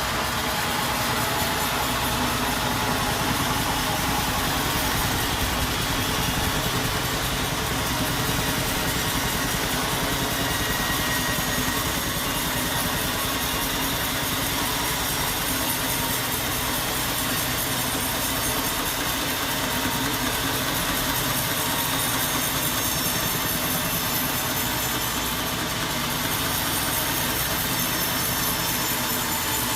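Sawmill machinery running steadily: a continuous, even mechanical drone with no clear cuts or breaks.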